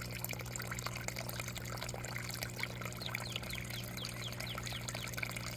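Running water trickling and splashing steadily, as in an aquaponics system's water flow. Birds chirp over it again and again, and a steady low hum runs underneath.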